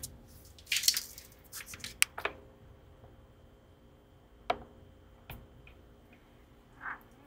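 Hands handling a new electric guitar string and its paper packet during restringing: soft rustles in the first couple of seconds, then a few light, sharp clicks. Faint ringing tones hang on after the clicks, and there is a short soft sound near the end.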